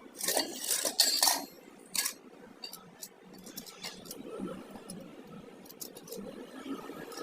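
Metal tools and parts clinking and knocking: a few sharp clinks in the first two seconds, then lighter scattered ticks.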